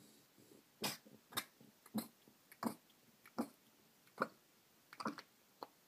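A cat hacking and retching about eight times, roughly one heave every two-thirds of a second, as it brings up a hairball.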